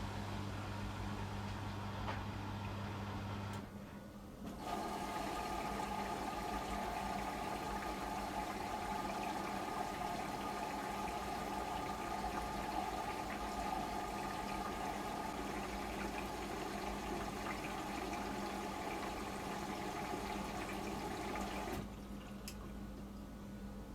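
Beko washing machine running a programme: a low hum stops about three seconds in, then water rushes steadily into the machine with a high whistle, typical of the inlet valve filling the drum, and cuts off near the end.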